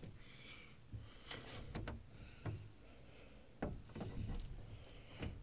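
Faint scattered knocks and light rustling, about seven soft knocks spread across a few seconds, with a soft hiss between them.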